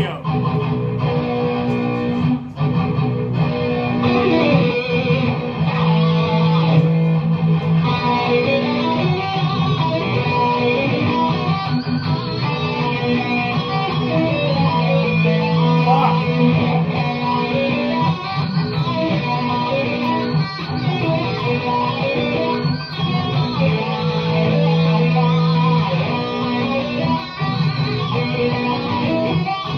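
Electric guitar playing a repeating rock riff, with held low notes coming back about every ten seconds, played along with a recording of the same riff from a TV.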